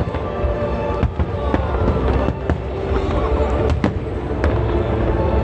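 Aerial firework shells bursting in rapid succession, about nine sharp bangs with a low rumble between them, over music playing in the background.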